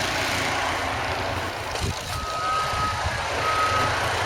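Heavy snow-clearing machine running, with its reversing alarm starting about two seconds in and sounding two steady high beeps about once a second as it backs up.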